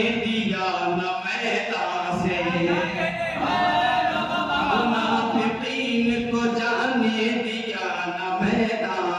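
A man singing a devotional recitation unaccompanied into a microphone, in long held, wavering notes.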